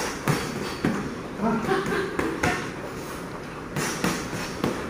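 Boxing gloves landing on a sparring partner's gloves and guard: several sharp slaps, irregularly spaced.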